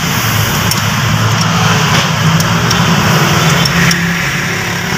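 Steady hum of an engine running, with a few faint clicks over it.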